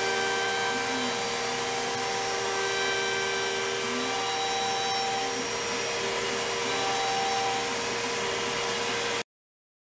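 CNC router spindle running steadily as its end mill cuts a padauk hardwood ring, with the hiss of the dust-collection hose over it. The sound cuts off suddenly about nine seconds in.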